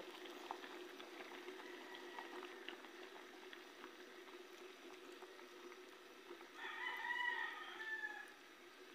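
A pot of soup bubbling at a steady boil. About seven seconds in, a rooster crows once for under two seconds, the loudest sound.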